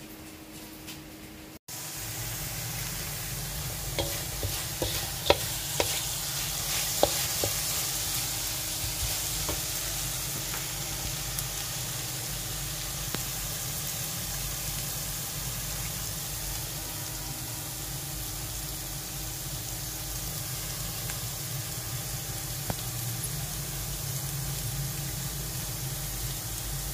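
Crumbled tempe orek sizzling in a wok as a wooden spatula stirs it, a steady frying hiss that starts after a short quieter stretch. A few sharp clicks of the spatula against the pan come a few seconds in.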